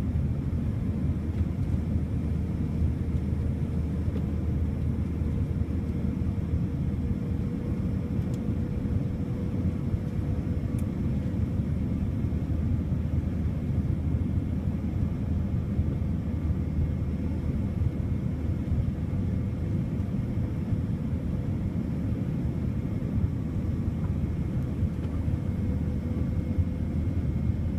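Steady cabin noise of a Boeing 787-9 airliner in flight: a deep, even rumble of airflow and engines, with a faint steady hum above it.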